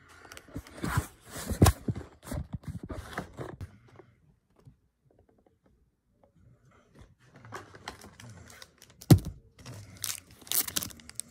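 Pokémon trading cards and foil booster-pack wrappers being handled and set down, with rustling, crinkling and sharp clicks. The handling pauses for a few seconds about four seconds in.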